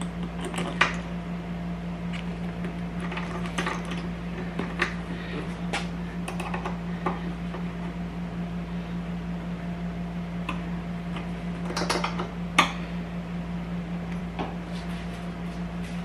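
Scattered light metallic clinks and knocks from tools and parts being handled while a motorcycle seat is refitted, the sharpest about a second in and again about twelve seconds in, over a steady low hum.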